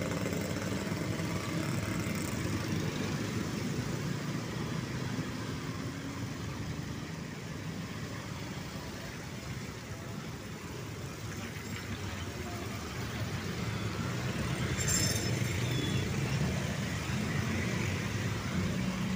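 Street traffic on wet asphalt: motorcycle and scooter engines and cars passing steadily, their tyres hissing on the wet road, easing off in the middle and building again toward the end. A brief high squeal about fifteen seconds in.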